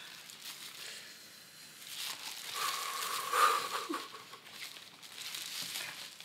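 Plastic air-cushion packing in a cardboard shipping box crinkling and rustling as hands handle it, picking up about two seconds in.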